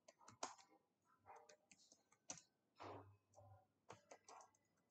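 Faint, scattered clicks of computer keyboard keys as a phrase is typed.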